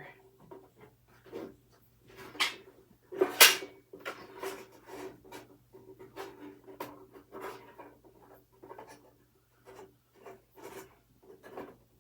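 Hands working on a fire alarm control panel: irregular scraping, rubbing and small clicks as parts are handled, with one sharp knock about three and a half seconds in.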